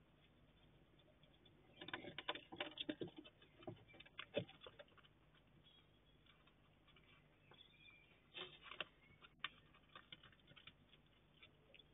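Hedgehog crunching dry cat food and rustling over the ground as it moves off: faint quick clicks and crackles in two short spells, about two seconds in and again about eight seconds in.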